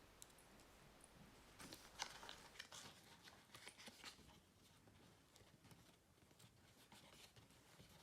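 Near silence with faint crinkling and clicking from about a second and a half in, tapering off after about five seconds: packaging and accessories being handled during an unboxing.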